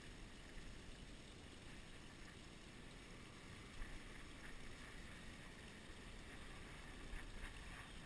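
Faint steady outdoor background noise by the water: a low rumble and hiss, with a couple of faint ticks.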